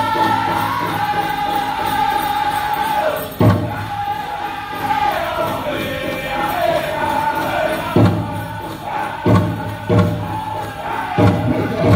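Powwow drum group singing a chicken dance song: high voices in a descending melody over a large shared hand drum. Loud drum strikes come about a third of the way in and again, closer together, in the last few seconds.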